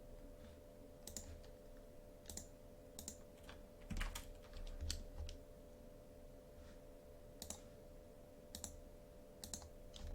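Scattered computer mouse and keyboard clicks, a dozen or so spread unevenly over the stretch, quiet, over a faint steady hum.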